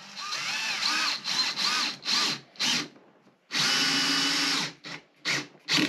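Cordless drill/driver driving screws through a swivel caster's steel mounting plate into the base of a guitar speaker cabinet. The trigger is pulsed in short bursts, with the motor speed rising and falling. Then comes one steady run of about a second, and a few more short bursts near the end.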